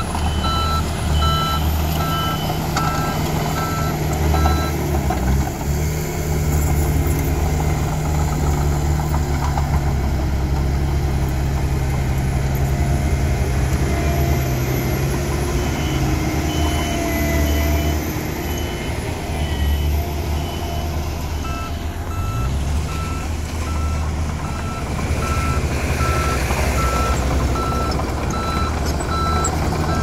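Komatsu D31P crawler dozer's diesel engine running steadily under load. A reversing alarm beeps in an even rhythm for the first few seconds and again through the second half.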